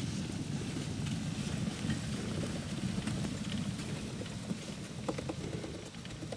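Lynx snowmobile engine running at low speed as the sled moves slowly past, a steady low rumble.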